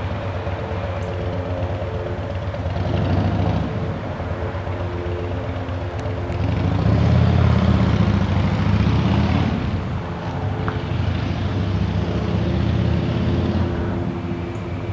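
Piston engines and propellers of single-engine light planes, a Piper PA-28 Archer and a Cessna 172S Skyhawk, droning overhead while climbing out shortly after take-off. The steady drone swells and eases several times as the planes pass.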